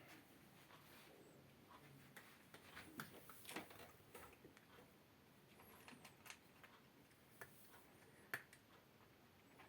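Very faint breathing of a sleeping cat, with soft nasal clicks every few seconds; the sharpest click comes near the end.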